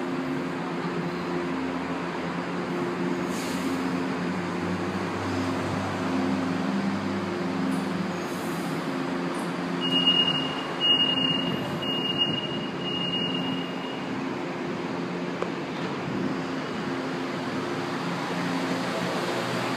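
Fleet H metro train standing at the platform, its onboard equipment humming steadily. About ten seconds in, four short high-pitched beeps sound in a row, the door-closing warning.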